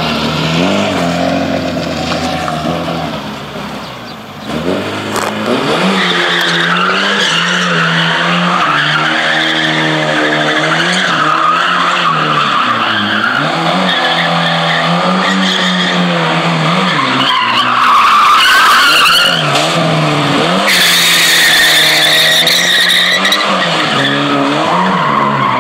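Lada sedan drifting in circles: the engine revs up and down again and again while the rear tyres squeal and screech on the asphalt. The engine drops away briefly about four seconds in, then picks up again, and the tyre screech grows louder and harsher in two spells in the second half.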